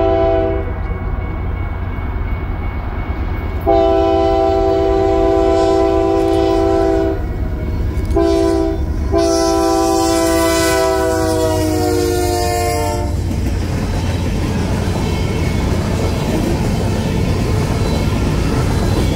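Canadian Pacific freight locomotive's multi-chime air horn: the tail of one blast, then a long, a short and a long blast in the grade-crossing pattern. The last blast drops in pitch as the locomotive passes at about 50 mph. After that comes the steady rumble and clatter of empty covered hopper cars rolling by.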